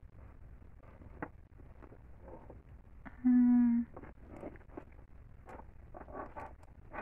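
A woman's short hummed 'hmm', held on one steady pitch for about half a second a little over three seconds in. Around it come faint handling sounds from the purse and a light click about a second in.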